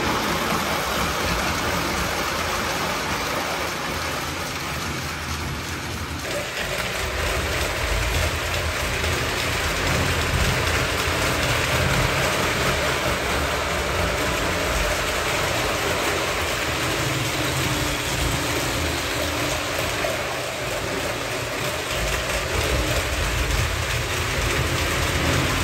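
Lionel Berkshire model steam locomotive pulling Madison passenger cars around O-gauge track: a steady rumble of wheels on rail and the motor's running noise, shifting slightly about six seconds in.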